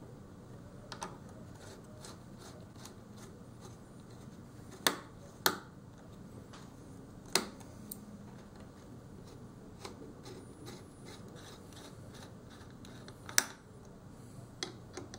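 Small screwdriver working the screws of a laptop's CPU heatsink and fan assembly: faint scraping and ticking of the driver tip in the screw heads, with four sharp metallic clicks, two close together near the middle and one near the end.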